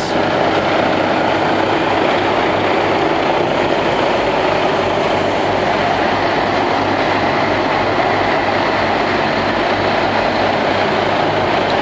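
Volvo FH16 750's 16-litre straight-six diesel idling steadily, heard up close at the front of the truck.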